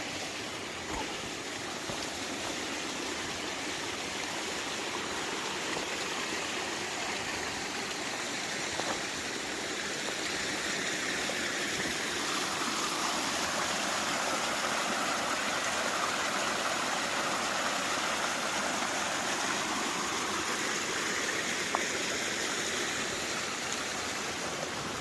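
Water running and splashing out of sight beneath a jumble of boulders, a steady rush that swells a little toward the middle.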